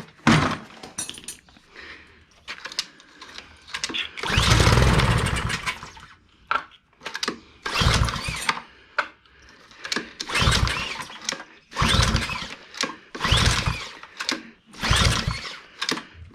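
Small gasoline engine of a Ryobi pressure washer being pull-started over and over. Each pull gives a short burst of sound, with one longer burst about four seconds in, and the engine does not settle into running.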